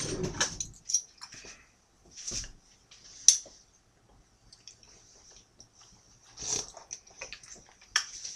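Quiet sounds of people tasting a sauce from spoons: scattered soft sips, lip smacks and spoon clicks with quiet gaps between them, and one sharp click about three seconds in.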